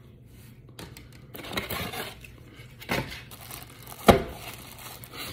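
Rummaging in a cardboard box, with plastic packaging rustling and two sharp knocks about three and four seconds in, the second the loudest.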